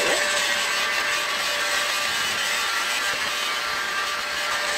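Electric heat gun running at a steady blow, a rush of air with a faint steady fan hum in it, aimed at plastic food wrap to melt it.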